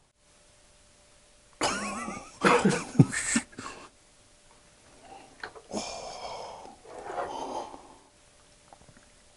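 A man coughing in harsh bursts, loudest about two to three and a half seconds in, then softer coughing and throat clearing about six to seven and a half seconds in.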